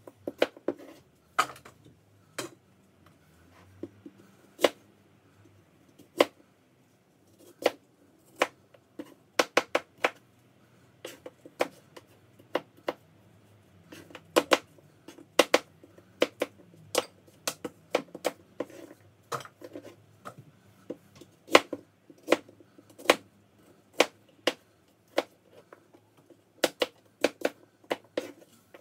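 Kitchen knife cutting apples on a cutting board: irregular sharp knocks of the blade striking the board, about one or two a second, some in quick clusters.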